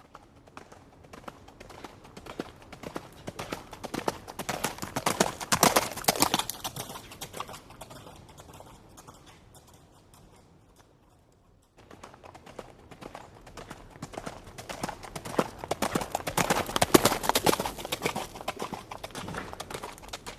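A trotting horse's hooves clip-clopping as it passes by: the hoofbeats build, peak and fade away, then after an abrupt cut a second pass builds, peaks and fades again.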